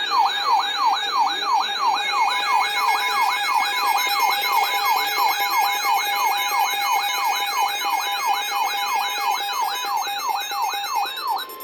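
Electronic siren-like alert tone, a loud warble sweeping rapidly up and down about three to four times a second. Near the end the sweeping stops and a steady tone takes over.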